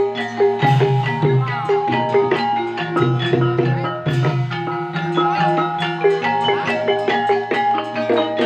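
Javanese ebeg dance music played live by a gamelan-style ensemble: mallet-struck keyed instruments ringing out quick repeating melodic patterns over drums and sustained low tones.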